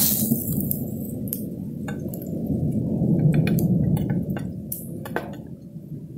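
Utensils clinking in scattered light taps against a speckled enamel camp plate as a grilled steak is served, over a steady low rumble that fades near the end.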